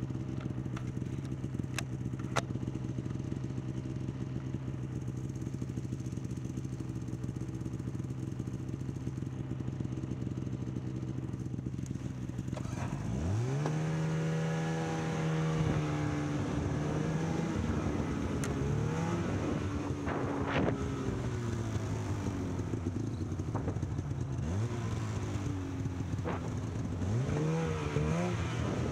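Snowmobile engine idling steadily, then a little under halfway through it revs up sharply and the sled moves off, the engine pitch rising and falling with the throttle.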